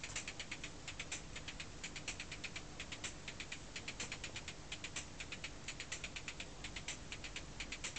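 A vinyl record playing on a DJ turntable, heard only faintly and thinly: a quick, fairly regular ticking of high-pitched percussion, several ticks a second, with almost no bass.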